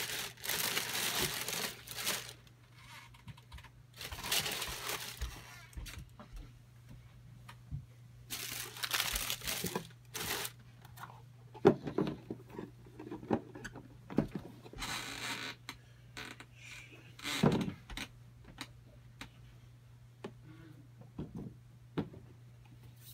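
Tissue paper crinkling and rustling in several bursts as it is pulled from around a pair of suede boots. Then come a few sharp knocks and thuds as the cardboard shoe-box lid goes on and the boots are set down on the box, two of them much louder than the rest.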